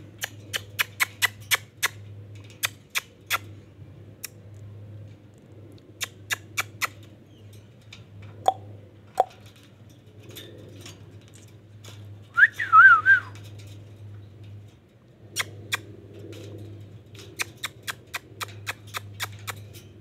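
Indian ringneck parakeet giving a short warbling whistle about halfway through, after two brief falling chirps, amid runs of quick sharp clicks.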